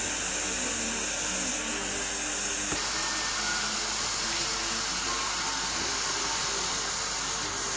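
Steady hiss with faint music underneath. Nearly three seconds in, the hiss changes abruptly with a single click.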